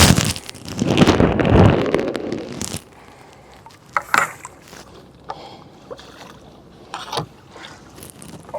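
Water sloshing and splashing for about two seconds, then quieter, with a few light knocks and clicks.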